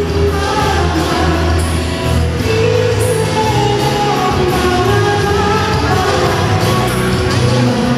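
A song with a singing voice over a steady, heavy bass, played loud over a hall's sound system.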